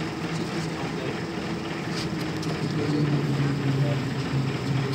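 A steady engine hum, its pitch dropping slightly about three seconds in.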